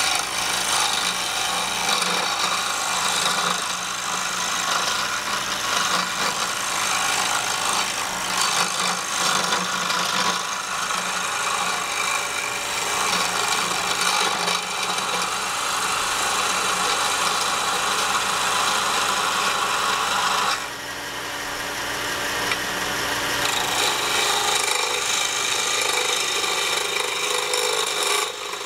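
Wood lathe running while a skew chisel shaves a spinning wooden pen blank for its final shaping, a steady rasping hiss of cutting over the lathe's low hum. The cutting noise drops away suddenly about two-thirds of the way in, then builds again toward the end.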